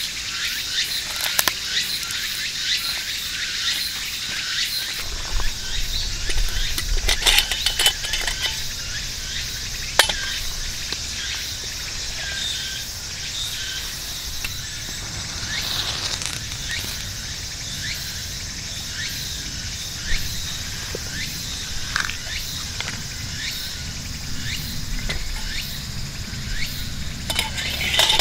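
Insects chirring in a dense, steady chorus, with occasional small clicks and rustles from hands handling twigs and a camping lantern.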